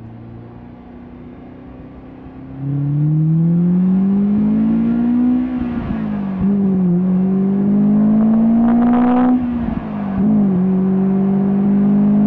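Honda S2000's four-cylinder engine with a Mugen exhaust accelerating hard, heard from the car: quiet at first, then the revs climb, drop at an upshift about six seconds in, climb again, drop at a second upshift about nine and a half seconds in, and settle into a steady pull.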